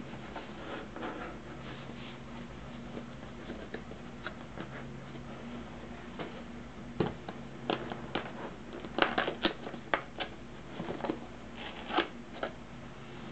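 Cardboard model-kit box handled by hand: scattered taps, scrapes and rustles as the box is turned over and its end flap opened, busier and louder in the second half. A steady low hum runs underneath.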